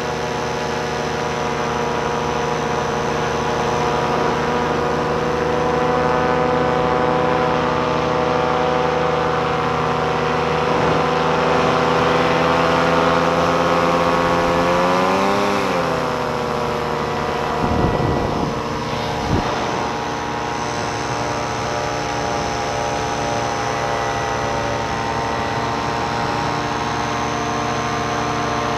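Tandem paramotor engine and propeller running steadily in flight. About halfway through the engine note rises briefly, then drops and settles at a lower steady pitch; two short low thumps follow a few seconds later.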